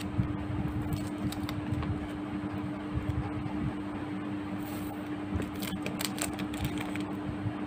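A small cardboard product box being handled and turned over in the hands: scattered light taps, clicks and rustles over a steady low background hum.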